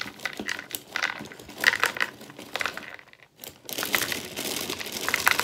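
Plastic cereal bag liner crinkling as it is squeezed and handled, then, a little past halfway, the cereal pouring out of the bag into a bowl with a denser, steady crackle.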